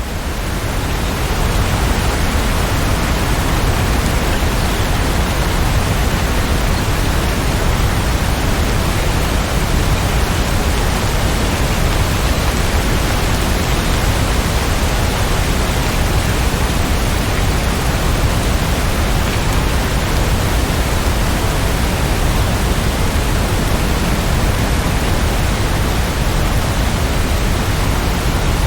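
Steady heavy rain: a dense, even hiss with no single drops or thunder standing out. It fades up over about the first second.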